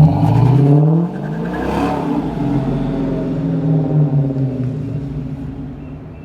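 Car engine with a Stage 2 camshaft accelerating, its pitch rising for about a second before the revs drop, then running on and fading away toward the end.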